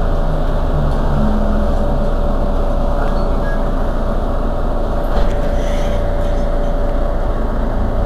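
Mercedes-Benz Citaro G C2 articulated city bus idling at a standstill, its engine running steadily with a constant whine above the engine note.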